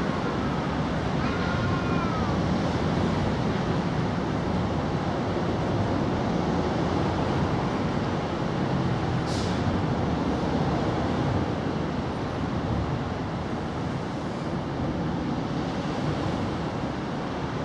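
Steady outdoor background rumble, like distant road traffic. A faint short chirp comes about a second in, and a brief soft hiss about halfway.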